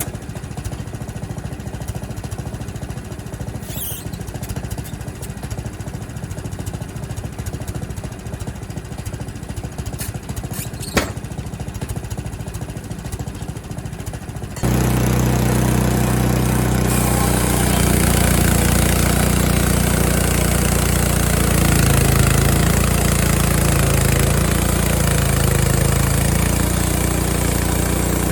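Frontier OS23 portable sawmill's gas engine running steadily, with one sharp click partway through; about halfway in the sound jumps suddenly to a much louder, heavier run.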